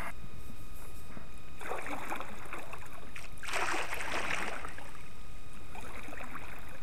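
Double-bladed kayak paddle dipping and pulling through river water: two splashing strokes about two seconds apart, over a steady low rumble.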